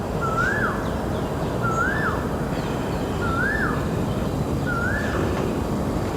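A bird calling over and over with a single whistled note that rises and then drops, four times about every one and a half seconds, over a steady low rumble of outdoor background noise.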